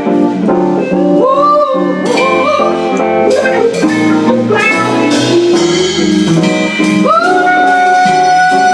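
Live band music: strummed guitar chords under a lead melody line that slides and bends in pitch, rising into one long held high note about seven seconds in.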